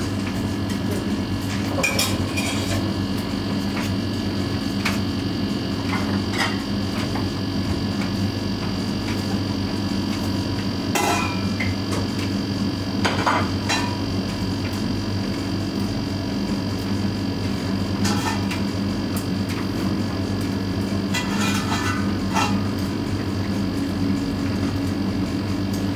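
Siemens front-loading washing machine running, its drum turning with a steady hum while the tumbling laundry knocks and clatters against the drum now and then.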